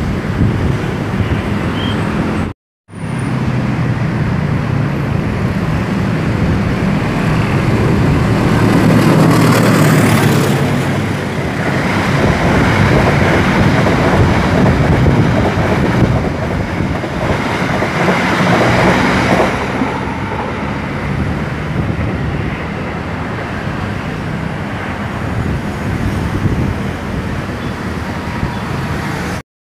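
An electric commuter train (KRL Commuter Line EMU) running past on the tracks with a steady rumble and hiss of wheels on rails, loudest between about 8 and 12 seconds in. The sound drops out briefly about three seconds in.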